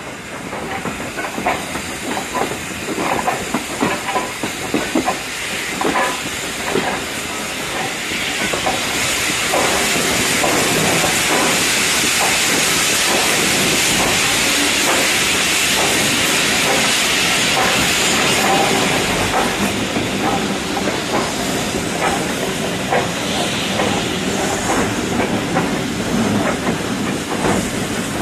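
Ex-LMS Hughes 'Crab' 2-6-0 steam locomotive moving slowly, heard close up from the train. Scattered knocks and clanks at first, then a loud steady hiss of steam from about eight seconds in until about twenty seconds, after which the clatter returns.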